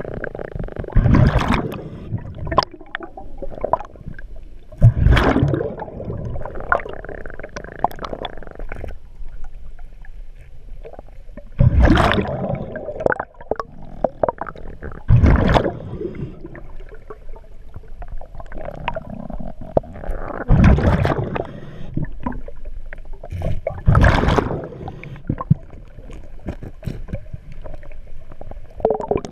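Diver's breathing regulator underwater: exhaled bubbles gushing out in strong bursts every few seconds, with quieter breathing hiss between them.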